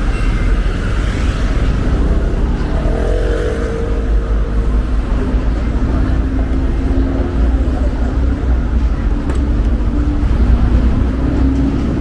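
City street traffic: motor vehicle engines running, with a steady low rumble.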